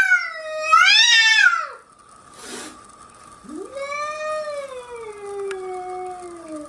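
Cat yowling: two loud, wavering yowls, the first ending about half a second in and the second ending just before two seconds, then after a short burst of noise a long, quieter yowl that slowly falls in pitch.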